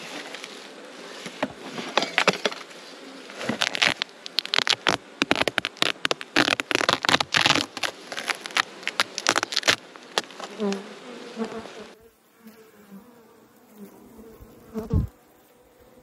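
Honeybees buzzing around an opened hive, overlaid for most of the stretch by dense crackling and crinkling as the foil-faced cover is peeled back off the comb-filled box. After an abrupt change about three-quarters through, quieter close buzzing of bees on the combs, with one thump near the end.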